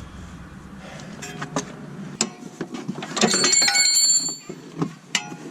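Metal hand tools clinking and knocking against metal parts, with a denser ringing metallic rattle for about a second around three seconds in.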